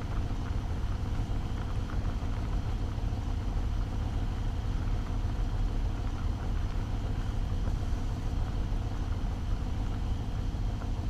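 A steady low rumble, even throughout, with no distinct events.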